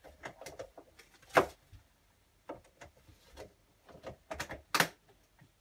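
Plastic tubs being handled in a reptile rack: a series of irregular knocks and clicks, with two sharper, louder ones about a second and a half in and near the end.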